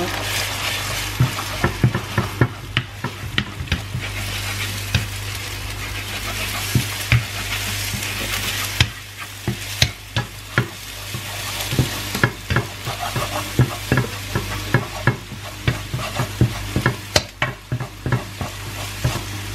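Eggs sizzling in hot oil in a nonstick wok while a wooden spatula stirs and scrapes them, with frequent sharp clicks of the spatula against the pan; the sizzle eases somewhat about nine seconds in. A steady low hum from a running washing machine sits underneath.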